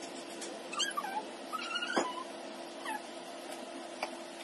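Puppy whining: three short, high cries that slide up and down in pitch, with a sharp knock about two seconds in.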